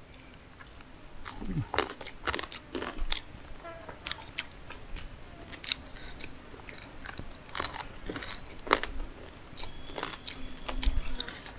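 A person eating close to the microphone: irregular chewing and crunching with sharp clicks.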